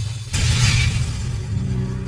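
Dramatic soundtrack music over a low sustained drone. About a third of a second in, a sudden noisy crash hit comes in over it and fades within about a second.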